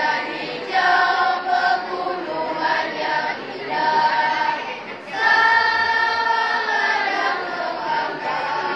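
A school choir singing in sustained chords. A phrase breaks off about five seconds in and a new long-held chord follows.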